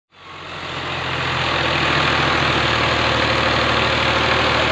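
Fiat Al-Ghazi tractor's diesel engine running steadily under load while trying to pull a sugarcane-laden trolley stuck in deep mud; the sound fades in over the first second.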